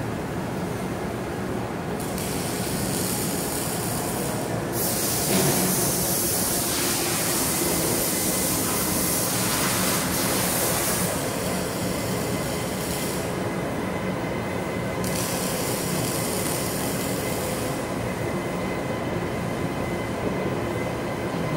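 Glass storage machinery running: a steady mechanical hum with stretches of high hiss that start and stop, loudest from about five to eleven seconds in.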